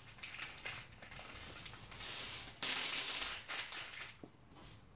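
Plastic parts bag from a Meccano set crinkling as it is handled and opened, with scattered small clicks; the loudest rustling comes a little past the middle.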